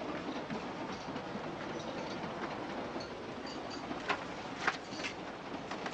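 Steady running noise of a moving passenger train heard inside a carriage, a continuous rumble and clatter of the wheels, with a few sharp clicks about four seconds in.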